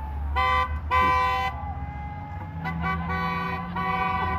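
Passing cars honking their horns: two blasts in the first second and a half, then three shorter toots about a second apart near the end, over the low rumble of traffic driving by.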